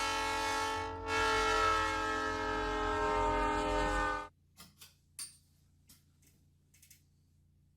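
A loud horn sounding a held chord in two blasts: a short one that stops about a second in, then a longer one that cuts off abruptly a little past four seconds. A few faint clicks follow.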